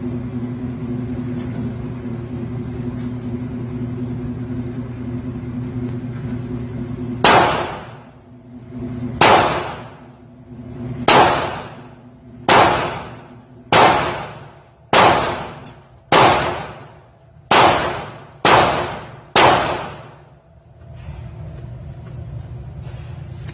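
Ten shots from a Glock 26 9mm pistol, fired at an uneven pace about one to two seconds apart, each followed by an echo that dies away. A steady low hum runs before and after the string of shots.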